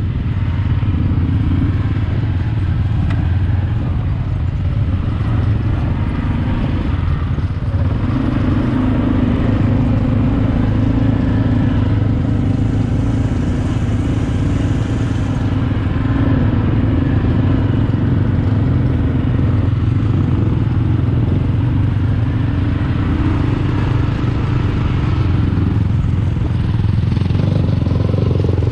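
ATV engine running steadily, heard from the quad that carries the camera, with other quads' engines close by.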